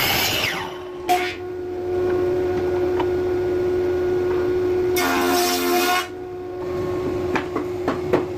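Sliding miter saw motor whining steadily, with two loud cuts through timber, one at the very start and one about five seconds in, its pitch dropping under load during each cut. A few light knocks near the end.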